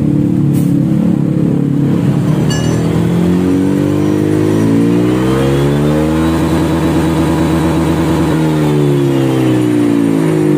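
Honda Vario scooter's single-cylinder engine, breathing through a newly fitted aftermarket stock-style racing exhaust, revved up with the rear wheel spinning free. The pitch climbs over a few seconds, holds high for about two seconds, then falls back as the throttle is eased.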